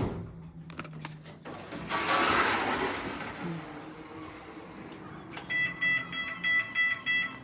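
Lift (elevator) operating: a sharp click and a few smaller clicks, then a rushing noise for a couple of seconds, then a run of about six short electronic beeps, roughly three a second, near the end.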